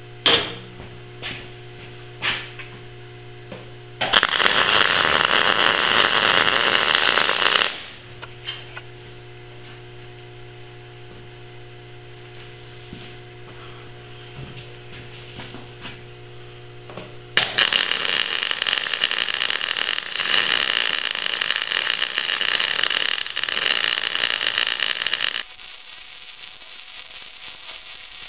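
MIG welder arc running in two long beads: a loud, steady hissing crackle, the first lasting about four seconds and the second starting past the midpoint and running on, with a steady electrical hum and a few clicks in between. The settings were aimed at spray transfer but didn't quite reach it.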